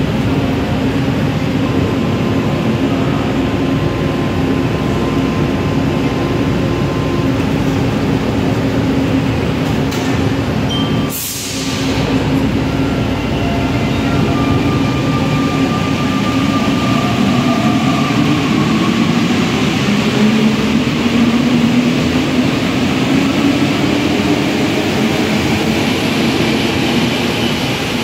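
An NS-93 metro train, stopped and humming steadily, then pulling away from the platform. About a third of the way in there is a short hiss, and over the second half the motors' tone climbs steadily in pitch as the train gathers speed.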